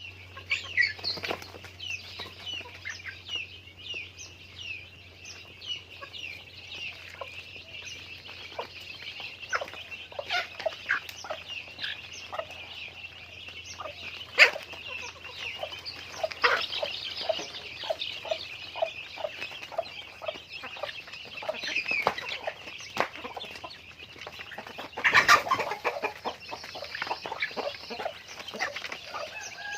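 Flock of chickens clucking and calling, many short calls overlapping throughout, with a louder burst of squawking about 25 seconds in.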